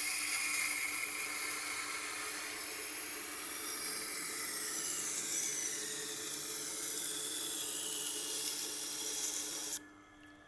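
Steel knife blade held against a spinning coarse sharpening wheel in a reprofiling pass: a steady grinding hiss over the machine's low motor hum. The hiss cuts off suddenly near the end as the blade is lifted away, leaving the hum.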